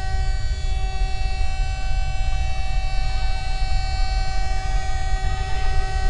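Steady alarm siren tone, several pitches held together without rising or falling, over a heavy low rumble. Faint wavering tones join in about halfway through.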